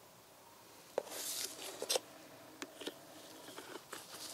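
Plastic engine-oil bottle handled in nitrile-gloved hands: a sharp click about a second in, then rustling and several light clicks of the plastic as the bottle is turned spout-down.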